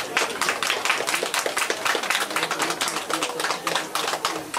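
Audience applauding: many quick, irregular hand claps.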